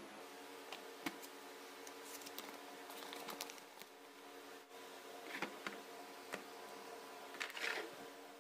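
Quiet handling noise from a digital caliper, its plastic case and a paper instruction sheet: a sharp click about a second in, then paper crinkling, then a few soft scuffs and rubs near the end, over a steady low hum.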